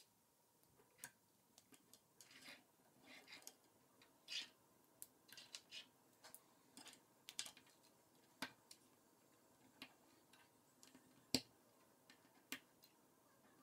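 K'NEX plastic rods and connectors being handled and snapped together by hand: scattered small clicks and brief plastic rustles, with one sharper snap near the end.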